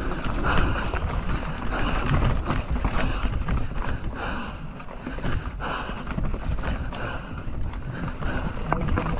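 Mountain bike rattling and knocking over rough trail ground: a steady rumble with many irregular clicks and knocks.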